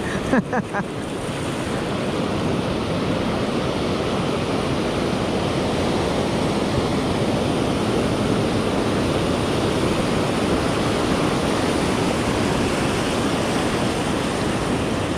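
Ocean surf breaking and washing up the beach: a steady rushing noise that builds slightly over the first couple of seconds and then holds even.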